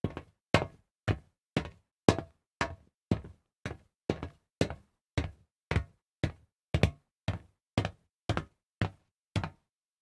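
Footsteps on a solid metal surface at an even walking pace, about two steps a second. Each step is a sharp knock that dies away quickly.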